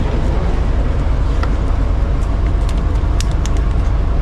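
Ice cream van's machinery running: a steady low rumble with a few light clicks.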